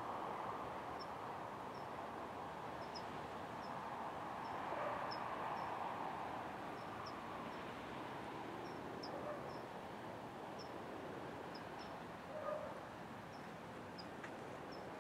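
Faint, short, high chirps from a small animal, repeating about twice a second, over a steady outdoor rushing background. A brief louder sound comes about twelve seconds in.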